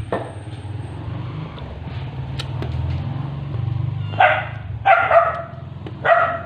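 A dog barking four times in quick succession in the second half, over a steady low engine-like hum.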